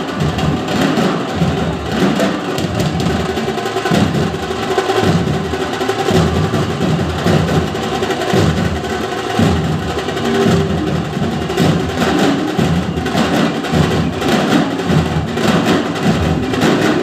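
Nasik dhol drumming ensemble playing a loud, dense, continuous rhythm of rapid drum strokes.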